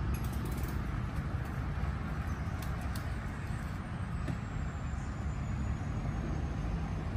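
Steady low rumble of road traffic, with a few faint light clicks.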